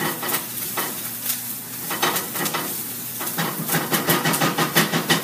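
Onions and garlic sizzling in a frying pan as they are stirred, the utensil clicking and scraping against the pan. The stirring strokes come faster and harder in the last couple of seconds.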